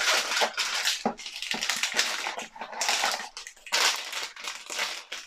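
Crinkling and rustling of the foil bags that wrap blind-box vinyl figures, with cardboard blind boxes being handled and opened, in irregular bursts.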